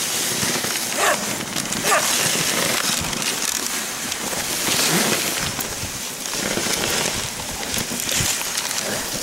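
A dog sled running along a snowy trail: a steady hiss of the runners over the snow with wind on the microphone, and a few short barks from the team of huskies pulling it.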